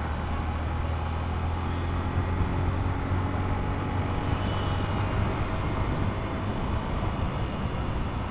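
Motorcycle riding along the road, heard from a microphone inside the rider's helmet: a steady low engine drone under wind and road rush.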